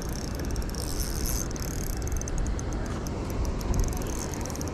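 Spinning reel being cranked as a hooked small bass is reeled in. Fine ticks from the reel come in runs from about two seconds in, over a steady low rumble and hiss.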